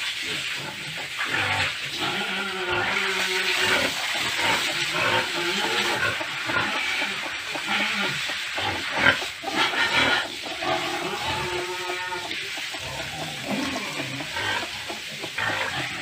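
Pigs grunting repeatedly over a steady hiss.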